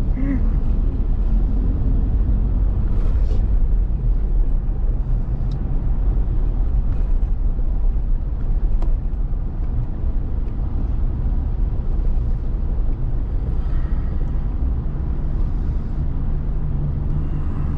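Steady low rumble of a car driving, engine and road noise heard from inside the cabin, with a few faint ticks.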